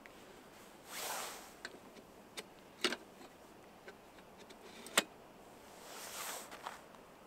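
Handling noise at a lit camping lantern: a few sharp clicks and clinks, the loudest about five seconds in, with two soft rustling swells, one about a second in and one near the end.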